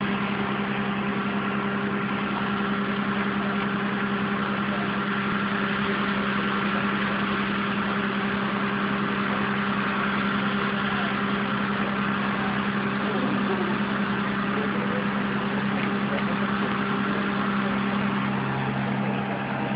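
A steady mechanical hum: a constant low drone at one fixed pitch with a fainter higher tone above it, unchanging throughout.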